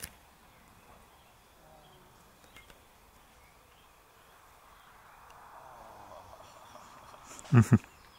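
Quiet open-air background with a faint insect buzz and a soft hiss that swells up and fades through the second half, then two loud knocks in quick succession near the end.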